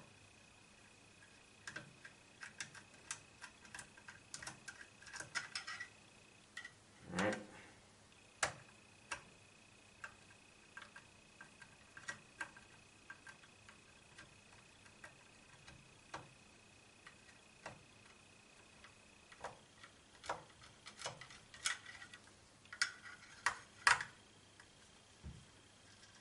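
Small clicks and ticks of a PH0 Phillips screwdriver turning tiny screws out of the plastic housing of a Reolink Go Plus camera, scattered and irregular with quick clusters of clicks, and one short scrape about seven seconds in.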